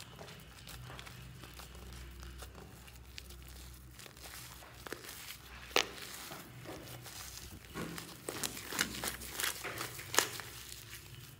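Fluffy shaving-foam slime being squeezed and stretched by hand: sticky crackling and squishing with sharp clicks. The clicks come thicker in the last few seconds, and the loudest ones fall about six and ten seconds in.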